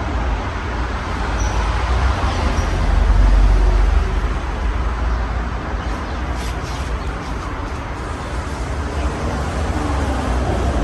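A 53" Casablanca Halogen Star ceiling fan with five blades running, heard as a steady whooshing noise over a low rumble that swells a few seconds in.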